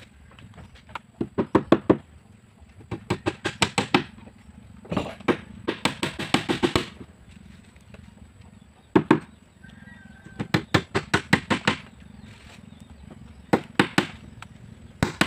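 A claw hammer driving nails into the meranti side planks of a wooden jukung canoe hull, in quick runs of about six to eight strikes a second with short pauses between runs.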